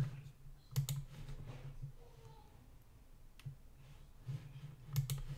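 Quiet, scattered computer mouse clicks, a few about a second in and a cluster near the end.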